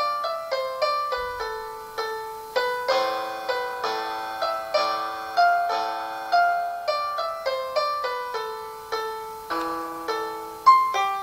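Piano music from an online virtual keyboard, played through a laptop's small speakers: notes and small chords struck about two to three times a second, each one ringing and fading, with no deep bass.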